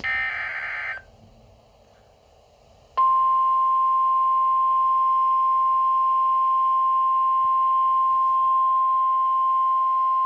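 Emergency Alert System signal for a severe thunderstorm warning: a one-second burst of warbling SAME digital header data at the start, then after a two-second gap a single steady, loud alert tone near 1 kHz (the 1050 Hz weather radio warning tone) that begins about three seconds in and holds.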